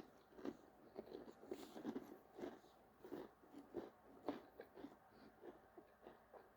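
Faint crunching as a Pringles Cheddar and Sour Cream potato crisp is chewed, in short irregular crunches about two or three a second.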